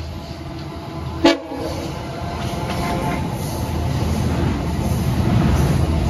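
EMD F59PHI locomotive's 12-cylinder two-stroke 710 diesel working at full throttle (notch 8), a steady low drone growing louder as it approaches. About a second in, a brief, loud sharp sound cuts through it.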